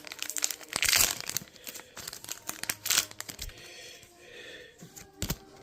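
Foil booster-pack wrapper crinkling and tearing as a Pokémon card pack is opened, with louder bursts of rustle about one and three seconds in and a sharp click near the end.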